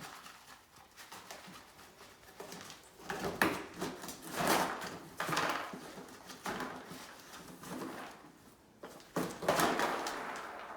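A dog rummaging in cardboard puzzle boxes for treats: bursts of cardboard rustling and scraping, loudest about three to five seconds in and again near the end.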